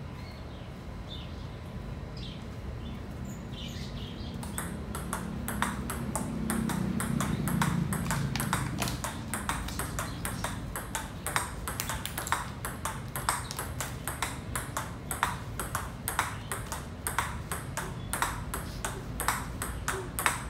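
Table tennis forehand rally: the ball is hit back and forth between two paddles and bounces on the table, each contact a sharp click, in a quick, even rhythm that starts a few seconds in.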